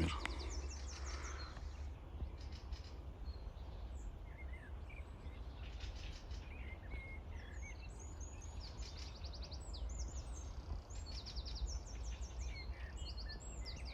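Small birds chirping, with several short, quick trills of high notes scattered through, over a steady low rumble.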